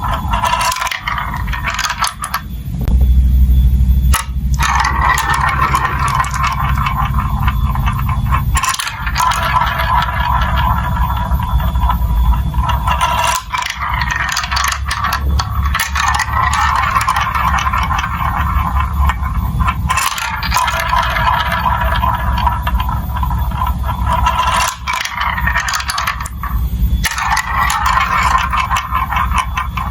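Glass marbles rolling and clattering along plastic marble-run building-block tracks, a dense run of rattling clicks and small knocks with a steady low hum underneath.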